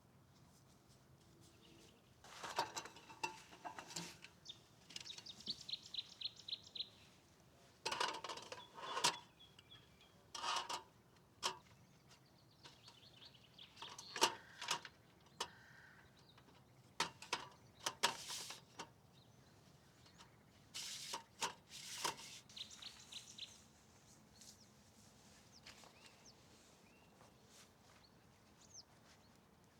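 Camping gear being handled, with scattered knocks and clatters in several clusters through the first two-thirds, then quieter. A bird gives a short trill of quick high chirps early on.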